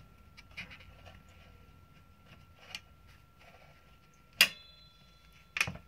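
Small clicks and taps of hand tools working a carbon brush out of its holder on a shower pump motor. There is one sharp metallic click with a brief ring about four and a half seconds in, and a short cluster of clicks near the end.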